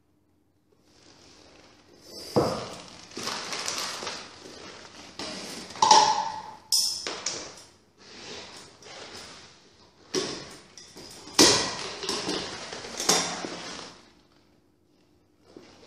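Manual floor corker being worked by hand: the lever is pulled down and raised to squeeze a natural cork in its plastic jaws and drive it into a glass wine bottle. The mechanism and the glass make a series of sharp clunks and knocks, with a brief ringing tone about six seconds in.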